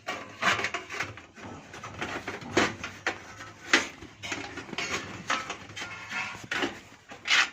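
Hands handling and routing a SATA data cable inside a PC case to plug it into a motherboard SATA port: scattered plastic clicks and rubbing, with a few sharper clicks.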